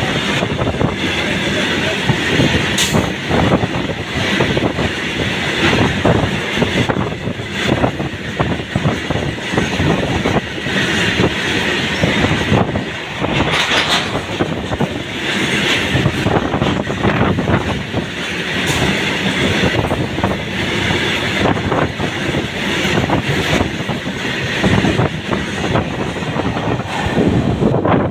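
Goods train's freight wagons rolling through close by, a loud continuous rumble with rapid clacking of the wheels over the rail joints, the brake van at the tail passing near the end.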